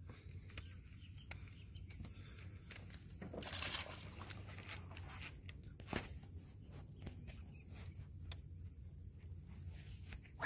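A quiet low rumble with scattered small clicks and knocks, a brief rushing noise about three and a half seconds in, and a sharper knock about six seconds in.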